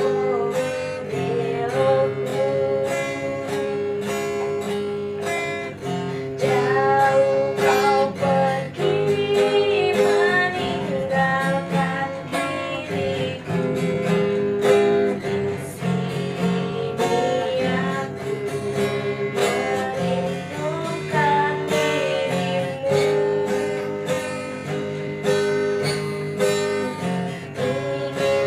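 Song with acoustic guitar strumming and a voice singing a melody over it.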